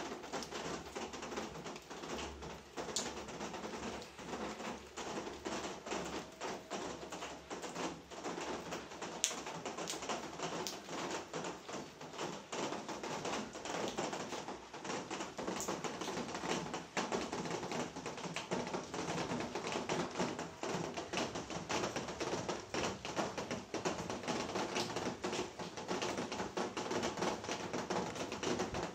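Rain falling: a dense, irregular patter of drop taps that keeps up throughout.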